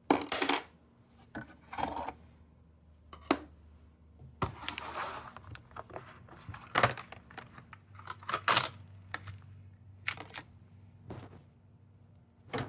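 Desktop computer hardware being handled: a string of irregular plastic and metal clicks and knocks, with a longer scrape about five seconds in.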